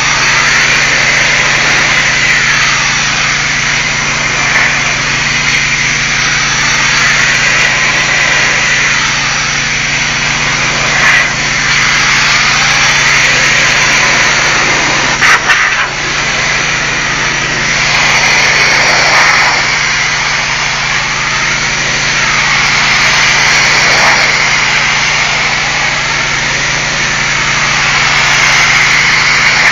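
Pressure-washer wand blasting water onto a brick wall: a loud, steady hiss that swells and shifts as the spray sweeps across the bricks, over a steady engine hum. A brief knock about fifteen seconds in.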